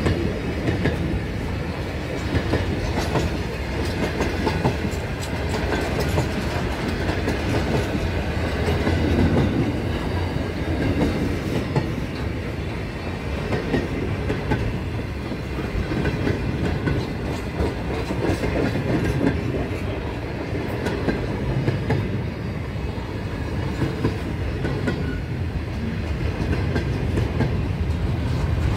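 Freight train wagons rolling past at close range, a steady rumble of wheels on rail with a clickety-clack of wheels over rail joints. A deeper low rumble builds near the end.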